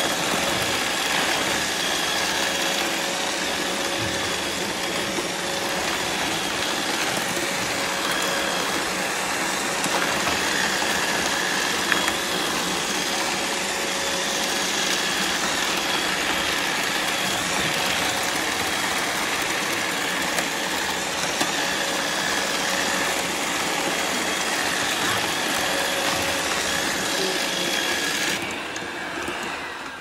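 Several robot vacuums, iRobot Roombas among them, running together: a steady whir of suction motors and brushes with a few faint steady whining tones, which thins out and drops away near the end.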